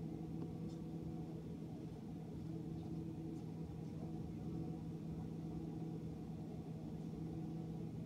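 GE dishwasher running mid-cycle: a steady low motor hum with an even rumble underneath.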